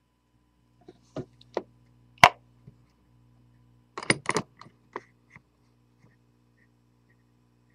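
A handful of sharp clicks and light taps as small parts and tools are handled on a steel block: one crisp click a little after two seconds in and a quick cluster of taps about four seconds in. A faint low steady hum runs underneath.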